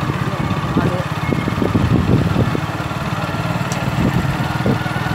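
Motorcycle engine running steadily as the bike rides along, heard from the rider's seat.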